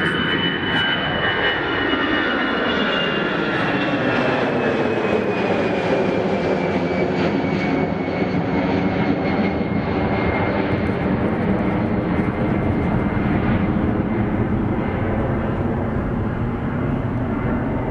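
Airliner passing close by with its engines running loudly and steadily, a high whine sliding slowly down in pitch as it goes by.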